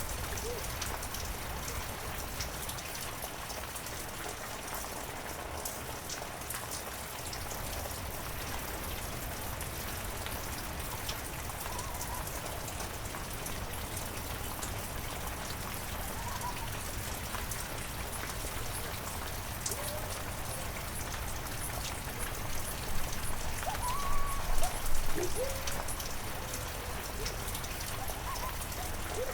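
Heavy rain falling steadily, a dense hiss of many separate drops ticking on surfaces. From about two-thirds of the way in, a few short whistle-like sounds that slide up and down stand out over the rain.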